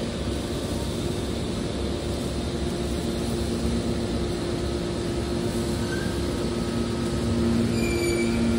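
Scrap car baler running: a steady machine drone with a constant hum, growing a little louder near the end.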